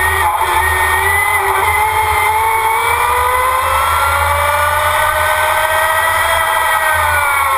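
Electric Formula Student race car's drive motor whining on the move. The pitch climbs through the middle seconds as the car speeds up, then falls as it slows near the end, over steady wind rumble on the onboard microphone.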